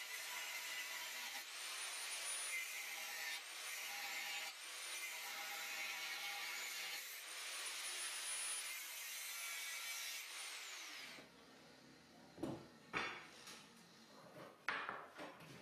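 Angle grinder working steel profile pipe in several passes, its high motor whine rising as it spins up and falling as it spins down. It stops about eleven seconds in, followed by a few sharp knocks.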